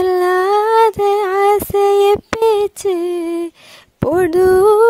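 A woman singing a Malayalam song unaccompanied, holding long notes, with a short pause about three and a half seconds in.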